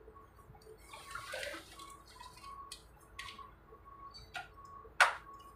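Handling noises from an open inverter welding machine as hands move its wiring harness and sheet-metal casing: a rustling scrape about a second in, scattered light clicks, and one sharp click about five seconds in.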